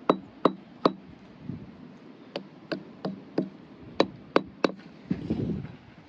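A beach rock struck repeatedly, giving sharp knocks in three runs of three or four, about a third of a second apart, with a sound the speaker calls really weird. A short rustle follows about five seconds in.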